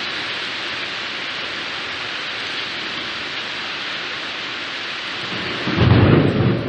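Steady hiss of heavy rain in a thunderstorm. A louder low rumble starts near the end.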